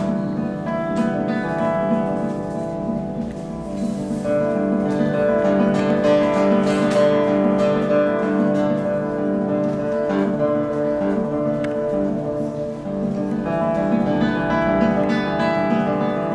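Classical guitar played solo with the fingers: a continuous flow of overlapping, ringing plucked notes in a minimal, ambient style.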